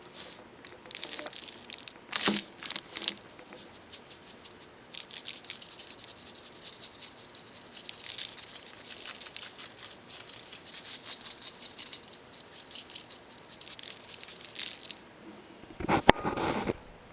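Plastic or paper packaging crinkling, rustling and tearing as it is handled and opened, in many small irregular crackles. Near the end comes a louder knock with a brief clatter.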